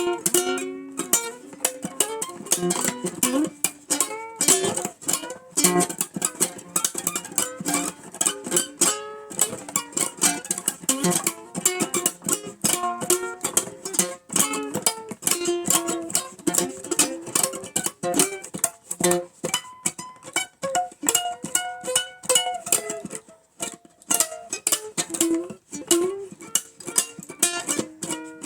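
Plucked acoustic string instruments playing an instrumental old-time blues lead break: a quick run of picked single notes with shifting pitches.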